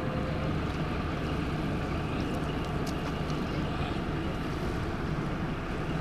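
Steady low drone of a boat engine on the river, mixed with wind noise.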